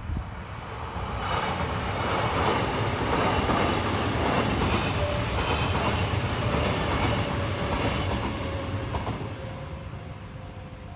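A Kintetsu Minami-Osaka Line electric train passing over the level crossing. Its running noise builds about a second in, stays loud for several seconds, then fades away near the end.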